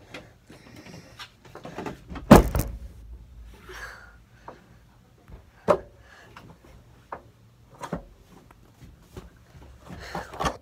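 Handling noise from a phone being carried and moved about: rubbing and scattered knocks on the microphone, with one loud thump about two seconds in.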